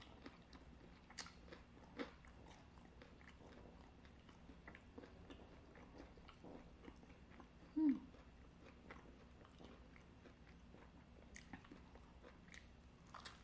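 Faint chewing of a mouthful of fried chicken, with scattered small crunching clicks. About eight seconds in comes a short falling hum from the eater's throat, the loudest sound here.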